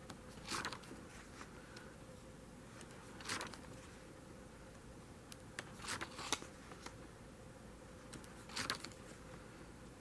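Faint paper rustling as the pages of a coloring book are turned and handled, in several short swishes a few seconds apart.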